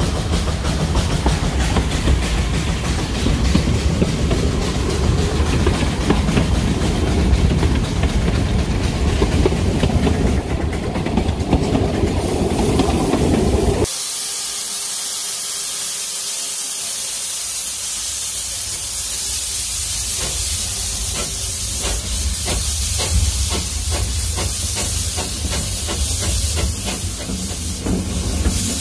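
Wiscasset, Waterville & Farmington No. 9, a two-foot-gauge Forney tank steam locomotive, rumbling and rattling along the track. About halfway through it changes abruptly to a loud, steady steam hiss from the locomotive, with scattered clicks later on.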